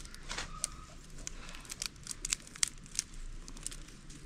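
Dry twigs snapping as they are broken by hand for kindling: an irregular series of sharp snaps and crackles.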